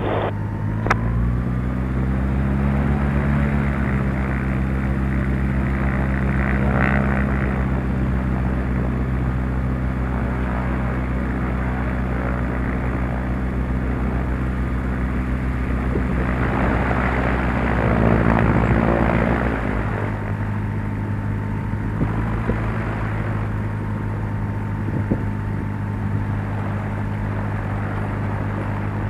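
Cessna 172's piston engine and propeller running at low power while taxiing. The engine note rises slightly about two seconds in, holds steady, then settles lower around twenty seconds in.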